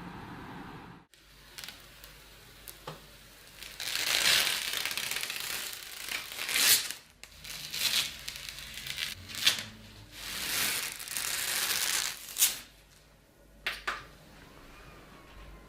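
Crinkling and rustling of handled material in several bursts, with a few sharp clicks and taps between them.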